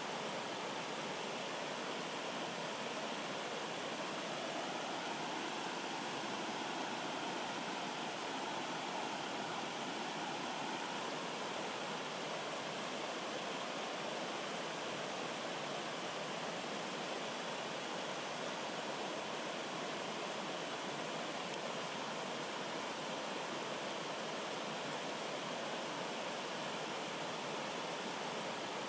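Rocky stream babbling and rushing over small cascades between boulders: a steady, unchanging rush of water.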